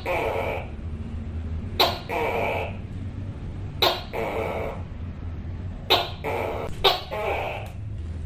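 Tokay gecko calling its two-part "to-kay": a sharp, clipped first note followed by a longer drawn-out second, repeated about every two seconds, over a steady low hum.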